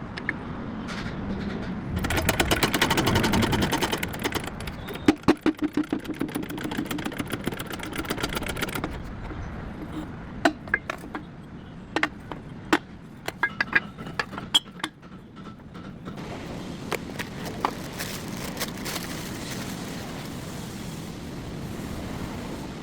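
Mechanic's tool work: a fast mechanical rattle for several seconds, then a run of sharp metal clinks and knocks, then a steadier background noise with occasional clicks.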